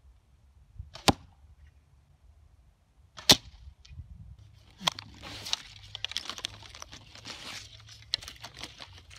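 Longbow arrows striking the target twice, about a second in and again a couple of seconds later, each a sharp smack. From about five seconds in, wooden arrows are worked out of the target by hand, a run of scraping and clicking.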